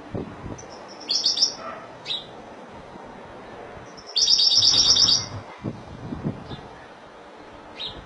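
European goldfinch singing: short bursts of high twittering about a second and two seconds in, a longer rapid trill lasting about a second from about four seconds in, then a couple of single notes.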